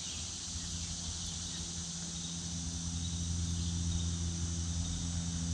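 Steady high buzz of insects in summer, with a low humming tone that comes in about two seconds in and slowly grows louder.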